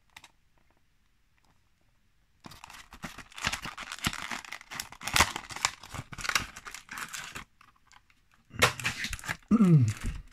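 Plastic blister pack of a Greenlight 1:64 die-cast car being pried open and crinkled. The dense crackling and tearing starts about two and a half seconds in and lasts several seconds. It comes back briefly near the end, with a short falling squeak.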